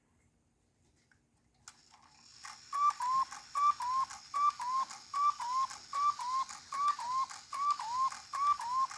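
Cuckoo clock calling with its bellows whistles: a falling two-note 'cu-ckoo' repeated about eight times, roughly once every 0.8 s. It starts about three seconds in, after the striking train begins running with a steady hiss. The movement is uncleaned and the bellows are not set at their best position, but the call comes out fairly well.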